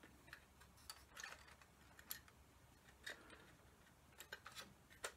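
Faint, scattered clicks and taps of small 3D-printed plastic parts being handled and pressed together by hand, about eight in all, irregularly spaced.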